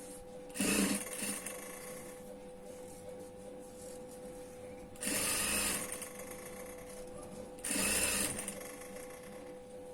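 Sewing machine stitching in three short runs, the third near the end, with a steady hum from the machine between runs.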